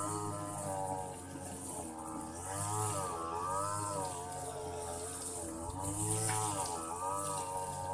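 A small engine running unevenly, its pitch wavering up and down every second or so, over a steady high-pitched hiss.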